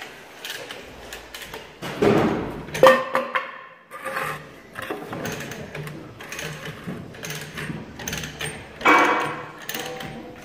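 Scraping and knocking as a 2x4 block is shoved into place under a hanging tractor transmission, with a loud clank about three seconds in that rings briefly, and more scraping near the end.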